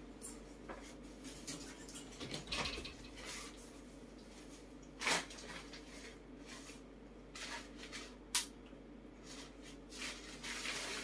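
Faint rustling and a few short light knocks as pet monkeys clamber in and around a fabric play tunnel on a bed, with a sharp click a little over eight seconds in.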